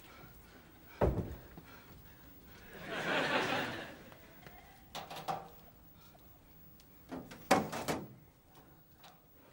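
A door bangs shut about a second in, followed by a short swell of noise. Near the end a steel locker door is unlatched and pulled open with several sharp metallic clicks and knocks.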